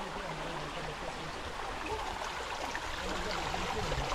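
A stream of running water flowing steadily.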